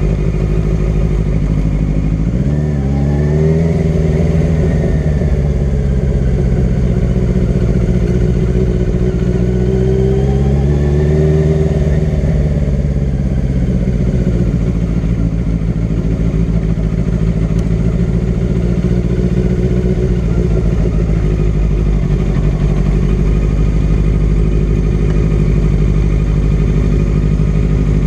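Yamaha sport bike's engine at low speed. Its note rises about two seconds in, eases off, and rises and falls again around ten to twelve seconds in. It then settles into a steady low note.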